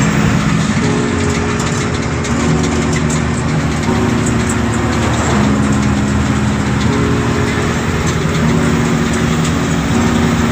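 Truck engine and road noise heard from inside the cab while driving along a highway. Under the noise there are steady low tones that change pitch about every second and a half.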